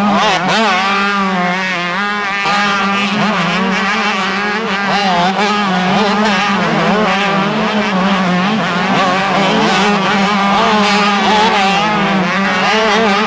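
Several motocross bikes racing through a sandy corner, their engines revving hard and overlapping, each pitch rising and falling as the riders accelerate and shift.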